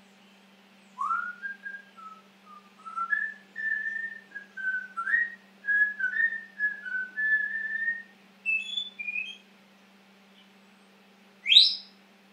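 African grey parrot whistling to itself: a run of short, clear whistled notes that wander up and down in pitch. After a pause, one sharp, quickly rising whistle near the end is the loudest sound.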